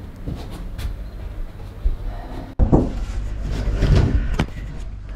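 Bumps, knocks and rubbing of a person clambering through a roof space over timber trusses and ceiling boards, with rumbling handling noise. The sound drops out abruptly about two and a half seconds in, after which the thumps are louder.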